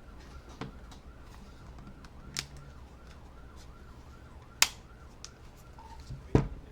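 A few sharp clicks and taps from small smartphone parts being handled and fitted during reassembly. The loudest click comes about four and a half seconds in, and a lower knock follows near the end.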